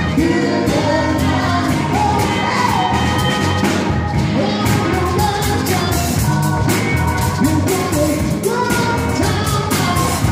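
Live band playing an upbeat song with a singing voice over a steady drum beat and horns.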